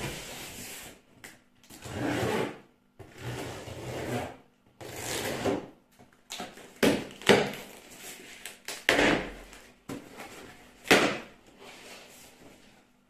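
Packaging rustling as a rubber seal kit is unpacked and gone through by hand. In the second half come several sharp knocks and clicks as pieces are handled and set down.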